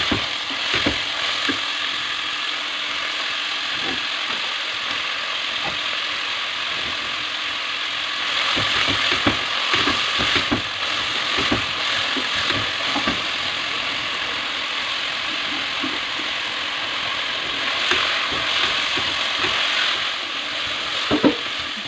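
Shredded vegetables sizzling in hot oil in a stainless steel pan, stirred with a wooden spoon that scrapes and knocks against the metal over and over. The scraping comes thickest about a third of the way in and again just before the end.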